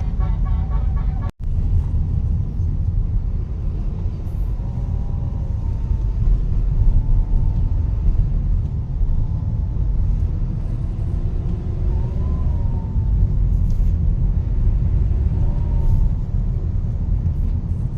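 Steady low rumble of a motor vehicle on the road, cut by a brief dropout just over a second in, with a few faint short tones rising and falling now and then.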